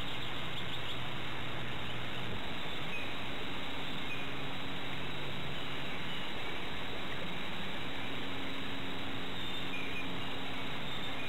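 Outdoor garden ambience: a steady hiss with a few short, high bird chirps scattered through.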